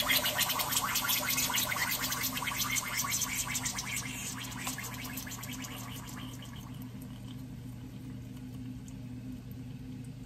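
A baking-soda-and-vinegar water-bottle boat spluttering in sink water as carbon dioxide from the reaction escapes through its straw. The rapid splutter fades away over the first five or six seconds as the reaction runs down, over a steady low hum.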